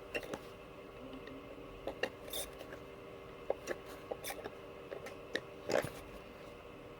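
Small metal tools clicking and scraping on a connector pin held in a vise as the melted solder is worked loose to free the old wire. The clicks are irregular, with a louder cluster near the end, over a faint steady hum.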